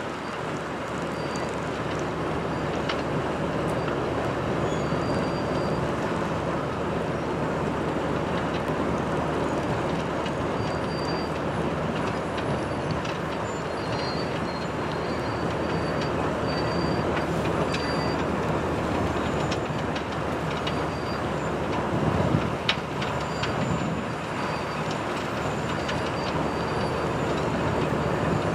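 SM2 snow-removal train running along the track with a steady rumble. Short high wheel squeals come now and then, and a few metallic clanks stand out about two-thirds of the way through.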